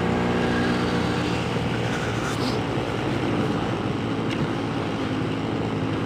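Yamaha RX King's two-stroke single-cylinder engine running on the move, its engine note fairly steady under a steady wash of riding noise.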